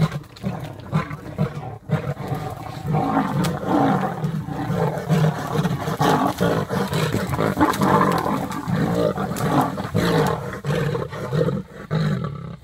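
Lions fighting: a male and two young lionesses roaring and snarling almost without pause in a loud, continuous struggle over a kill.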